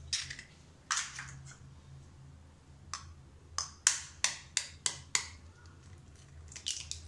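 Kitchen knife blade tapping raw eggshells to crack them: sharp clicks, a few spaced apart at first, then a quick run of about seven taps in the middle and two more near the end.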